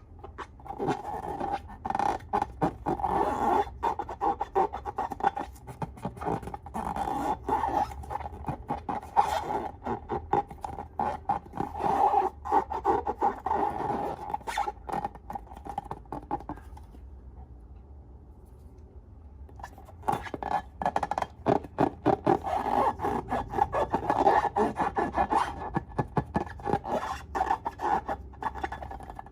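Close-up scraping and rubbing as balloons and slime materials are handled: a dense run of small scrapes and crackles. It stops for about three seconds past the middle, then starts again.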